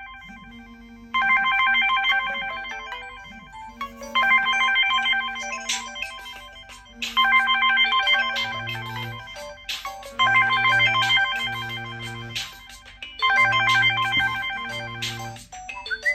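Smartphone incoming-call ringtone: a short, bright bell-like melody repeating about every three seconds, with a low bass line joining about halfway through.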